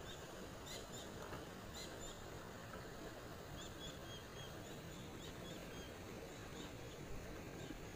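Faint outdoor ambience: a steady hiss with soft, short high chirps scattered through it.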